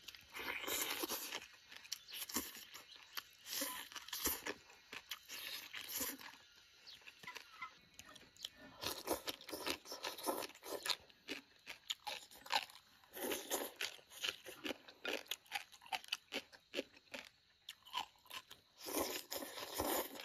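Close-up chewing and crunching of mouthfuls of spicy chili-oil chicken and rice. It comes in bursts of crackly mouth noise a second or two long, with short pauses between them.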